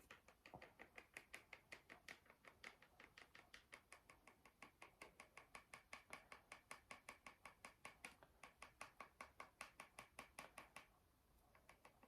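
Quiet, rapid tapping, about five taps a second, with a short pause near the end: a taco seasoning container being shaken and tapped to get the seasoning to come out into a measuring spoon.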